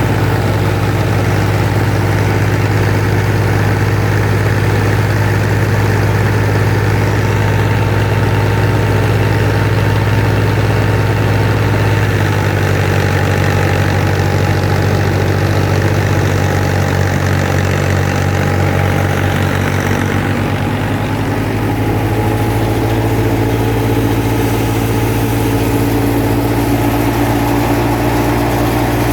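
Wheat thresher running at harvest: a loud, steady, heavy mechanical drone. The low hum shifts about twelve seconds in and returns near twenty-one seconds.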